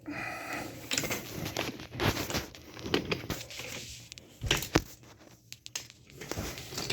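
Wooden toy train cars being handled and set on wooden track: scattered, irregular clicks and knocks of wood on wood, with some rustling.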